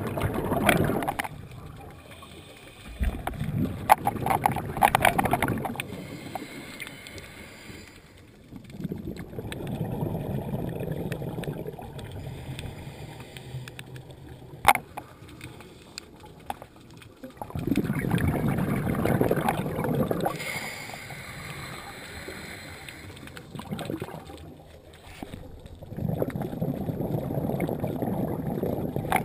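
Scuba diver's exhaled bubbles from a regulator underwater, coming in about five bursts of two to three seconds each, several seconds apart, with quieter stretches between. A single sharp click comes about fifteen seconds in.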